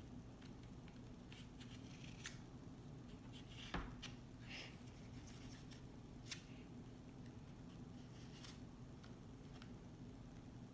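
Scissors cutting through tape on a toy package: a few scattered snips and clicks, the loudest about four seconds in, over a faint low hum.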